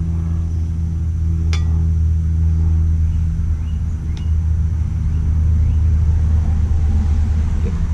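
Steady low mechanical hum, with a sharp click about a second and a half in and a lighter tick near four seconds.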